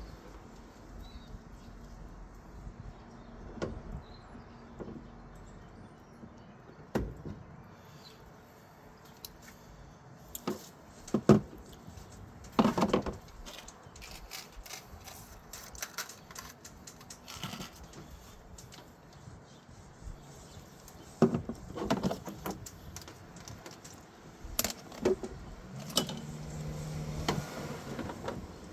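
Scattered clicks and knocks of hands working on a car headlight while the bulb is replaced, loudest in a few clusters in the middle and again toward the end.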